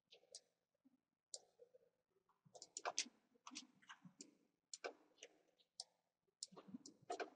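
Faint clicking of a computer mouse and keyboard, in quick clusters of several clicks every second or so.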